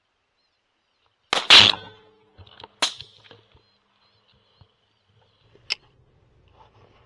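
Rifle shots at coyotes: a loud shot about a second and a half in, a second shot about a second later, then a fainter sharp crack near the end.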